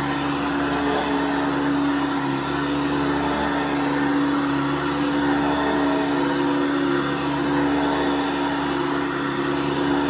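1982 Hoover Decade 80 commercial upright vacuum running steadily as it is pushed back and forth over carpet: a constant motor hum with a steady pitched tone over a rush of airflow noise.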